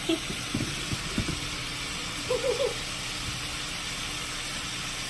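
Ground beef and onions sizzling in a frying pan, a steady hiss, with a few soft knocks in the first second or so.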